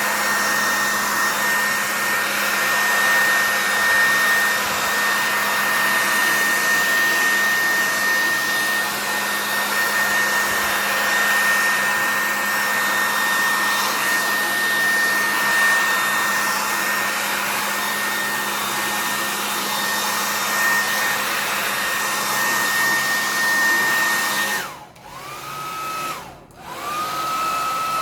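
Handheld hair dryer blowing steadily with a thin high whine over its rush of air, used to spread wet acrylic paint. Near the end it cuts out and is switched back on twice, and its motor whine rises each time it restarts.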